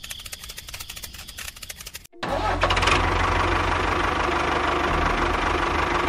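Rapid clicking for about two seconds. Then, after a brief break, a tractor engine starts and runs steadily with a strong low hum.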